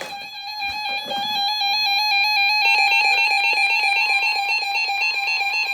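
A synthesized electronic alert tone trilling rapidly back and forth between two notes, bright with many overtones, growing louder over the first few seconds.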